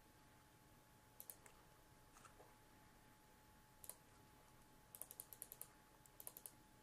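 Faint clicks of a computer mouse and keyboard: a few single clicks, then a quick run of about half a dozen about five seconds in, over quiet room tone.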